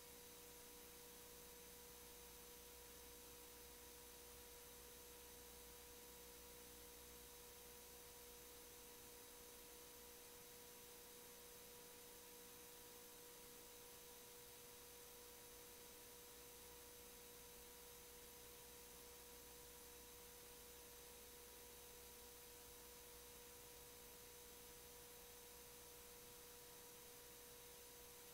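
Near silence: a faint, steady, unchanging hum tone with fainter overtones over a light hiss, the noise floor of an idle audio feed.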